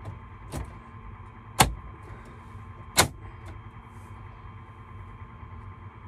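Plastic dash trim panel in a Kenworth truck cab being pressed into place, snapping on with a faint click and then two sharp clicks, one about one and a half seconds in and one about three seconds in, over a steady hum.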